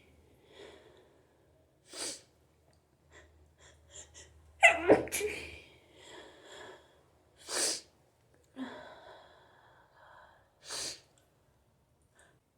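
A person sneezing in a hay fever sneezing fit: one loud sneeze about five seconds in, with shorter, quieter breathy sounds before and after it.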